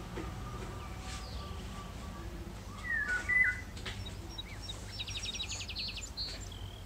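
Birds calling: a short whistled chirp about three seconds in, the loudest sound, then a fast high trill about five seconds in, over a low steady background hum.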